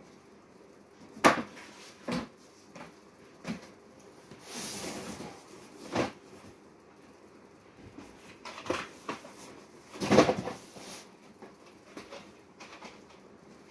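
Cardboard cartons being handled and set down on storeroom shelving: a run of irregular thumps and knocks, loudest about a second in and again about ten seconds in, with a sliding scrape around four to five seconds in.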